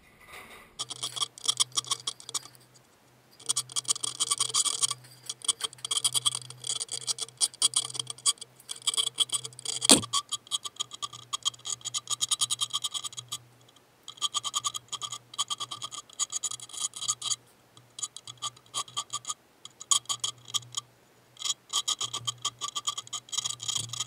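A hand file rasping across the teeth of a metal bicycle sprocket in runs of quick back-and-forth strokes, with short pauses between runs, and one sharp knock about ten seconds in.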